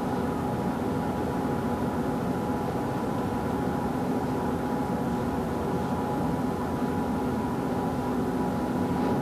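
Steady hum and hiss of an old videotape soundtrack, with a few steady tones and no other event.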